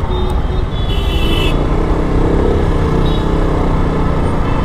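Single-cylinder engine of a KTM RC sport motorcycle running in slow traffic, with a low rumble throughout. The engine note rises and eases about two seconds in as the bike pulls forward. A brief high-pitched tone sounds about a second in.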